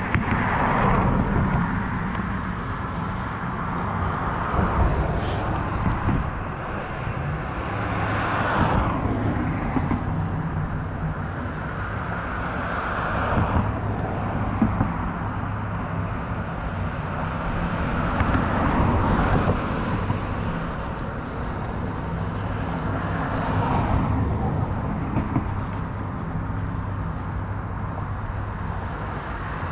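Road traffic: vehicles passing one after another every few seconds, each swelling and fading, over a steady low engine hum.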